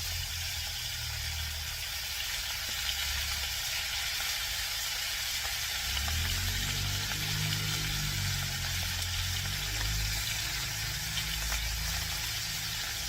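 Dried fish frying in hot oil in a pan, a steady sizzle. A low rumble sits underneath, a little stronger from about six seconds in.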